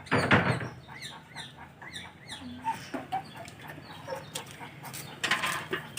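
Chickens calling: a run of short, high, rising-and-falling peeps and clucks repeated throughout. A brief noisy burst comes right at the start and another about a second before the end.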